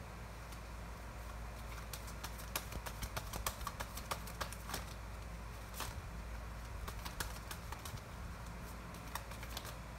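Tarot cards handled in the hands: scattered light clicks and ticks of card against card, coming thickly from about two seconds in, over a low steady hum.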